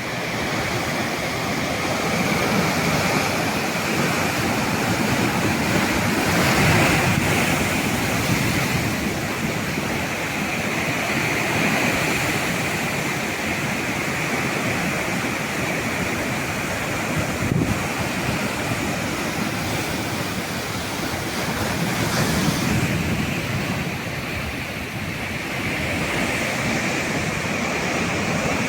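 Sea waves breaking and washing onto the shore, a continuous surf that swells and ebbs every few seconds.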